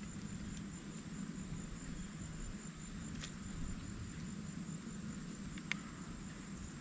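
A steady high-pitched insect drone, like crickets or cicadas, over a low rumble, with two sharp clicks, one about three seconds in and one near the end.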